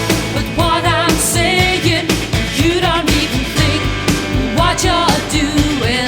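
Pop song with a sung vocal over bass and a steady drum beat.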